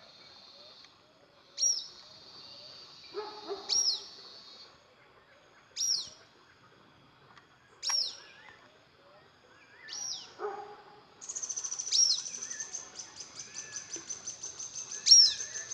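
Birds calling outdoors: a sharp, high, downward chirp repeats about every two seconds over a steady high trill. About eleven seconds in, the trill turns into a fast, even pulsing.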